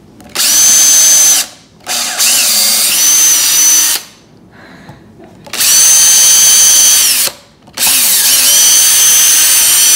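Cordless drill boring pilot holes into a hardwood stool seat, in four runs of one to two seconds each. The motor whine spins up at the start of each run and holds at full speed, with short pauses between the holes.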